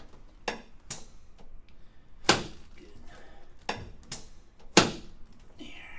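Chiropractic drop table's hip piece clacking: a series of sharp clacks, two of them much louder, about two seconds in and near five seconds.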